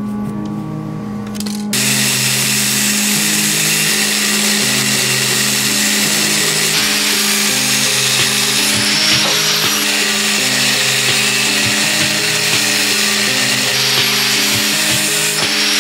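Angle grinder with a cut-off wheel cutting through a metal shifter rod to shorten it, starting about two seconds in and running on steadily, over background music.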